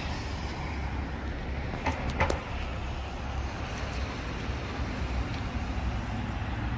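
Road traffic noise: a steady low rumble of motor vehicles, with two short sharp clicks about two seconds in.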